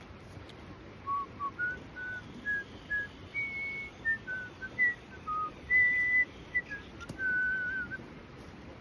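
A woman whistling a tune: a string of short, clear notes that climb and fall, a couple of them held longer, beginning about a second in.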